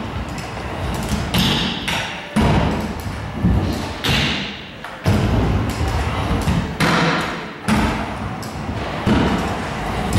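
Stunt scooter riding on skatepark ramps: a string of hard thuds, unevenly spaced at roughly one every second or so, as the wheels hit the ramps, with rolling wheel noise in between.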